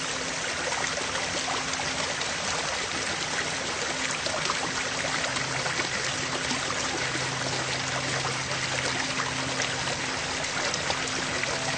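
Steady rushing noise, with a faint low hum that grows stronger about halfway through.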